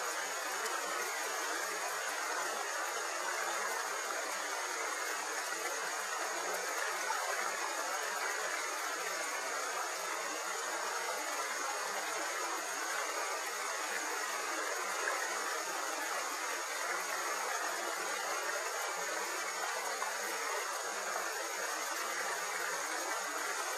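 Shallow river running over riffles: a steady rushing of water.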